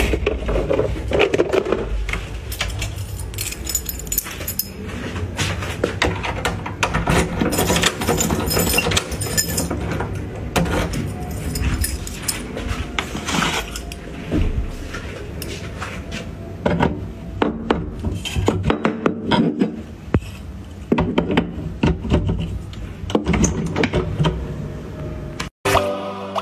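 Metal carabiners and clips clinking and rattling as they are handled, with many sharp clicks and knocks.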